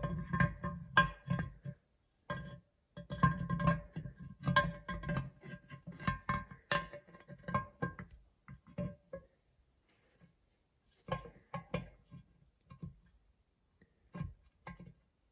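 Background music led by a plucked guitar, thinning out to a few sparse notes in the second half.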